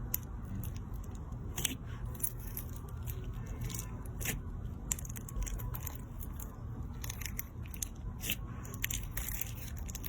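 Slime crunching and crackling as it is worked by hand, with many irregular sharp clicks and crackles.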